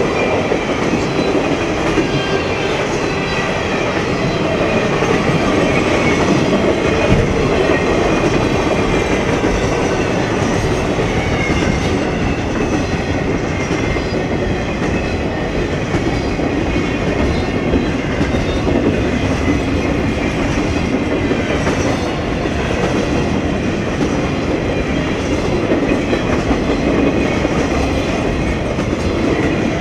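Triple Crown RoadRailer trailers rolling past on their rail bogies: a steady, loud rumble of steel wheels on wet rails that holds unchanged throughout.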